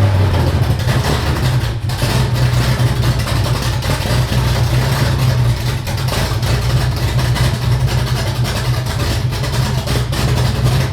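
1981 Corvette's 350 V8 running steadily on open straight headers with the exhaust pipes removed, loud and unmuffled.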